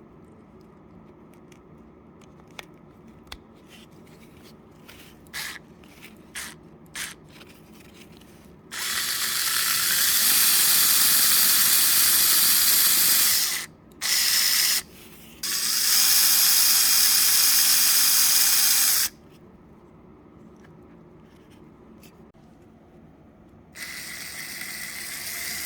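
Electric impact drill with 3D-printed gears, run in four bursts: a long one, a short one, a medium one, and a softer one that starts near the end. A few light clicks come before the first run.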